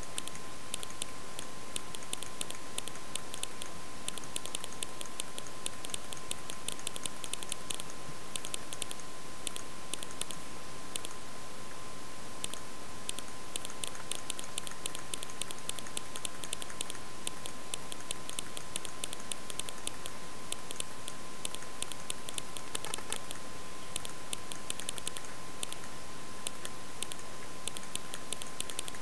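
Rapid, irregular clicking, like computer keyboard keys and mouse buttons being worked, several clicks a second, over a steady high-pitched tone and hiss.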